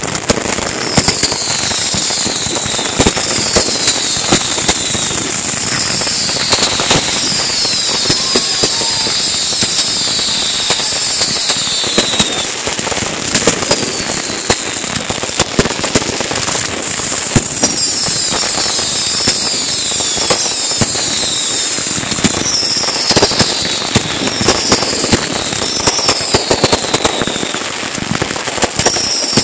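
Fireworks going off in a rapid barrage: constant crackling and sharp pops, with many whistles that each fall in pitch over about a second.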